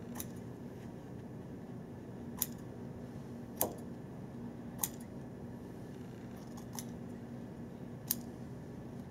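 Steel scissors snipping through Simonis worsted pool-table cloth to trim it around a pocket opening: about six separate sharp snips, spaced a second or more apart.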